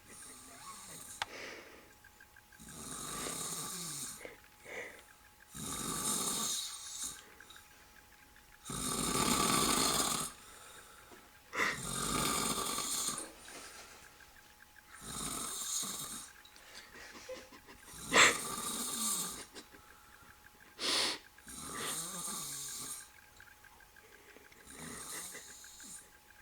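A middle-aged man snoring in his sleep after a night of drinking, one noisy snoring breath about every three seconds. One breath, about two-thirds of the way through, opens with a sharp click.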